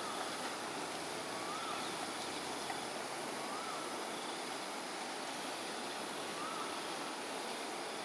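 Steady rushing background noise beside a flowing concrete canal with a road bridge over it. A faint, short whistled call that rises and falls repeats about every two seconds.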